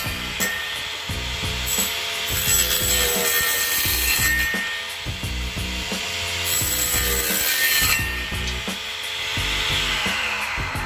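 Homemade circular saw, a 4-inch blade driven by an 895 DC motor, cutting through a white plastic sheet. A steady motor whine runs under a harsh rasping cutting noise that swells twice, and the whine falls in pitch near the end.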